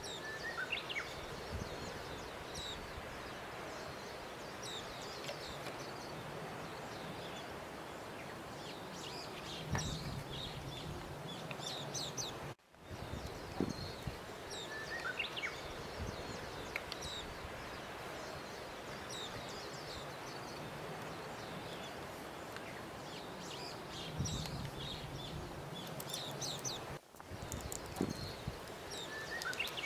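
Birdsong ambience: scattered short bird chirps over a steady outdoor hiss. It is a loop that restarts after brief dropouts about 13 and 27 seconds in.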